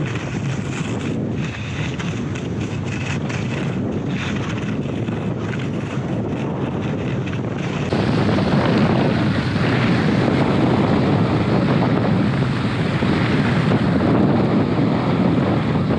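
Wind rushing over a helmet- or body-mounted action camera's microphone during a downhill ski run, mixed with the hiss of skis sliding over the snow; it gets louder about halfway through.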